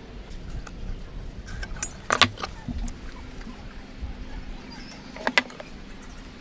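Steel rule and square set down and shifted against a wooden block, giving sharp metal-on-wood clicks, the loudest about two seconds in and another near the end, over a low steady hum.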